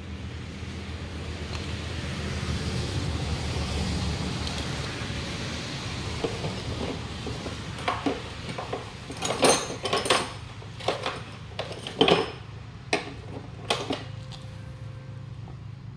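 Hard metal clinks and clatter, about ten sharp strikes in the second half, like tools being handled and set down. Before them, a steady rushing noise swells and fades.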